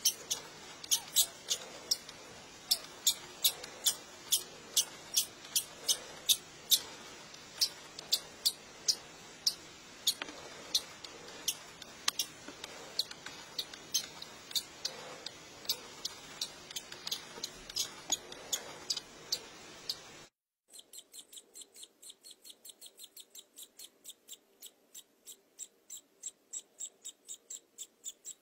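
Newly hatched budgerigar chick peeping: short, thin, high cheeps about two or three a second. About twenty seconds in the sound cuts off, then the peeps come faster and fainter.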